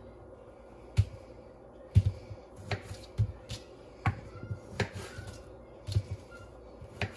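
Kitchen knife cutting paste tomatoes on a thin plastic cutting mat, the blade knocking down onto the counter beneath: a string of sharp taps, roughly one a second and sometimes closer together.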